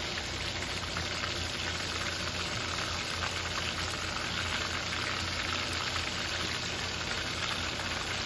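Flour-breaded chicken pieces deep-frying in hot oil in a cast-iron skillet: a steady sizzle of bubbling oil, with a low hum underneath.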